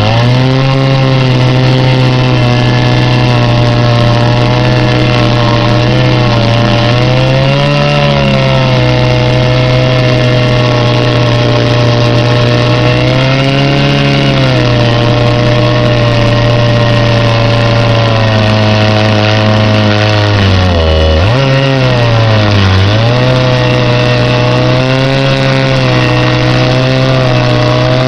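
Two-stroke chainsaw running at high throttle in a chainsaw mill, ripping a log cant lengthwise into one-inch boards. The engine holds a steady pitch, sagging briefly a few times as it bogs under the cut, with the deepest drop about three-quarters of the way through before it picks back up.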